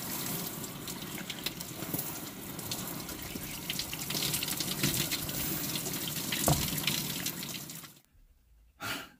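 Outdoor shower running: a steady spray of water from a post-mounted shower head splashing over a person's head and shoulders, cutting off abruptly about eight seconds in.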